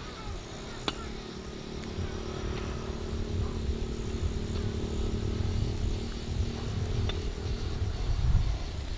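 Small motorbike engine running with a low rumble and a steady hum, growing louder.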